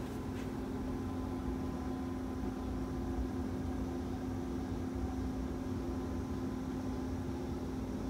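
Steady machine hum with a constant low tone over a soft even hiss, and a faint click just after the start.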